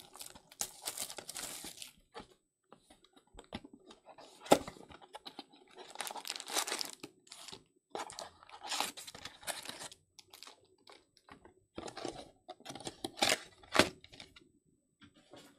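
Plastic shrink wrap being torn and crinkled off a cardboard trading-card box, then the box being opened. It comes in irregular bursts with a few sharp snaps, the loudest about four and a half seconds in and two near the end.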